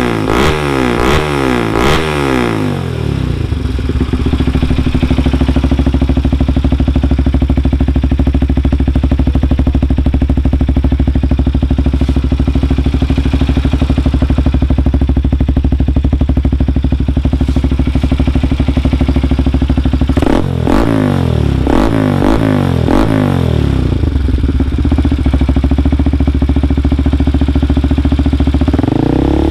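Bajaj Pulsar NS200 single-cylinder engine through a Yoshimura full-carbon aftermarket exhaust. It is blipped quickly several times at the start, settles to a steady idle, is blipped again a few times about two-thirds in, and is held at higher revs near the end.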